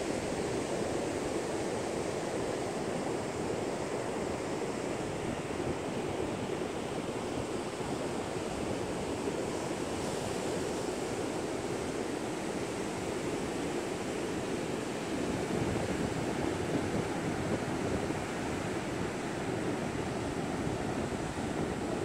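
Heavy pre-storm surf breaking and washing up the beach in a steady, continuous rush, with some wind on the microphone.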